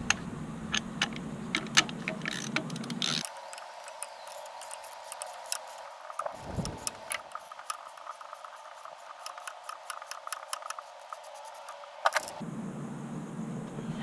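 Ratchet and spark plug socket clicking as a spark plug is backed out of a 2004 Toyota Camry's 2.4-litre inline four-cylinder head. A few separate metal clinks come first, then a long run of quick, even ratchet clicks.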